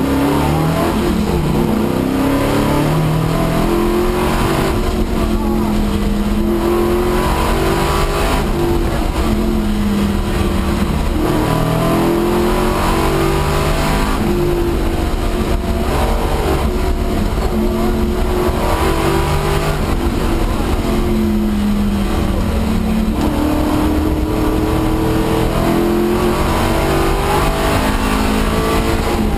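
Holden LX Torana's 355 stroker V8 heard from inside the cabin at rally stage pace, its pitch climbing through the gears and dropping back again and again as the car accelerates, lifts and brakes.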